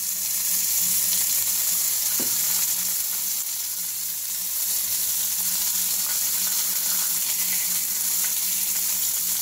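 Hot bacon grease sizzling steadily in a frying pan, an even hiss throughout, with one soft knock about two seconds in.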